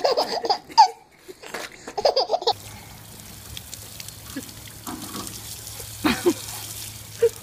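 Babies laughing in short bursts, then a garden hose spray nozzle hissing steadily as water sprays from it, with a brief child's vocal sound about six seconds in.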